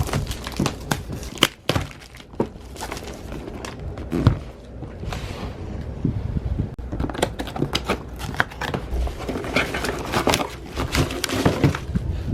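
Close-up handling noise: irregular clicks, knocks and crinkling as things are picked up and moved right by a phone's microphone.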